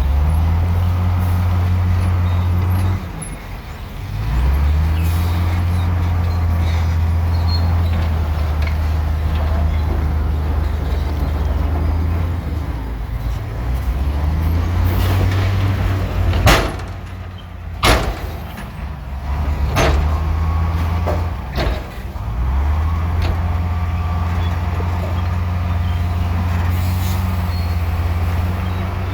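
Diesel engine of heavy earthmoving machinery running with a loud, deep drone whose load and pitch shift, dropping away briefly a few times. Several sharp bangs come about halfway through.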